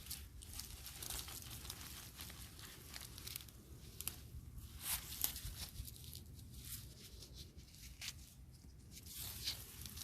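Irregular rustling and scraping with scattered crisp ticks, like soil and dry plant matter being handled during a potato harvest.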